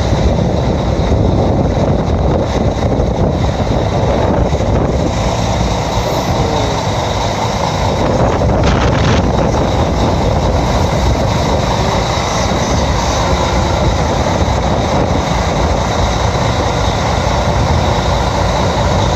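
Steady loud rumbling noise of a ferry under way through rough sea, engine and sea noise mixed together, with no break.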